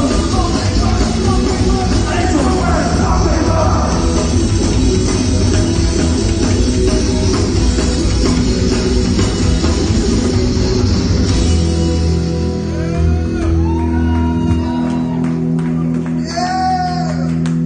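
Live rock band playing loudly: the full band goes hard until about two-thirds through, then drops away, leaving held notes ringing with voices shouting and singing over them.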